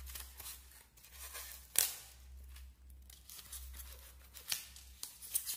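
Utility knife blade cutting into a polystyrene foam sheet in short, irregular angled strokes, with one sharper, louder crunch a little under two seconds in.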